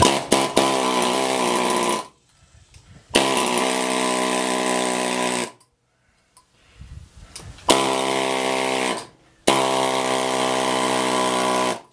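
Pneumatic air chisel hammering in four bursts of about two seconds each, with short pauses between, as its bit cuts through the copper windings of an AC compressor's motor stator.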